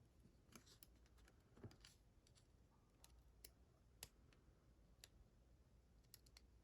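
Faint, irregular small metallic clicks of tools working in a Vachette HDI lock while it is taken apart, about a dozen sharp ticks spread unevenly.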